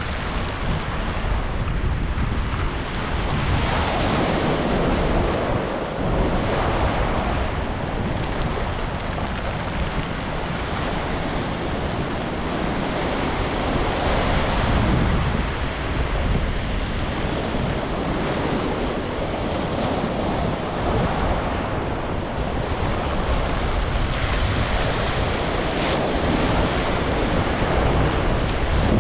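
Ocean waves breaking and washing on a beach, swelling every few seconds, with wind buffeting the microphone as a steady low rumble.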